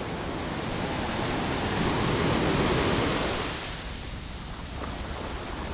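Ocean surf washing up a sandy beach: the rush of a breaking wave's foam swells, then eases off about halfway through.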